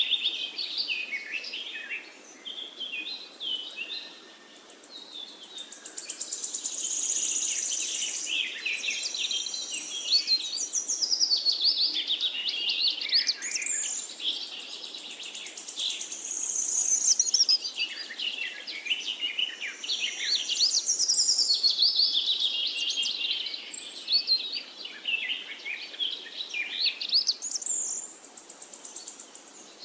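Many songbirds chirping and singing at once, a dense chorus of quick, overlapping high chirps and trills that swells and eases, with brief lulls about four seconds in and near the end.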